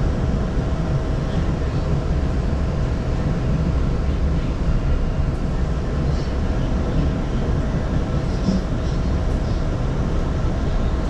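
MBTA Orange Line subway car running along a station platform as it pulls in: a steady low rumble of wheels and running gear with a constant mid-pitched hum.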